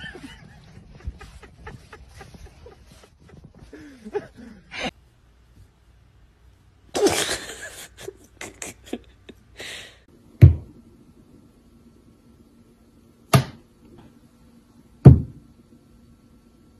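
Three hard, short knocks, one to three seconds apart in the second half, over a low steady hum. A brief scuffling, rustling noise comes earlier.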